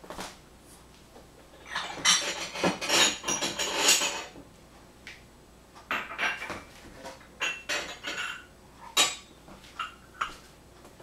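Kitchenware clinking and clattering in short bursts, glass and metal dishes being handled on a stovetop: a dense run of clatter about two seconds in, then scattered single clinks.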